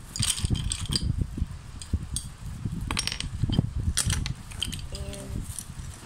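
Loose plastic Rubik's cube pieces clicking and clattering as they are handled, knocked on a wooden tabletop and snapped together by hand: irregular small clicks and knocks.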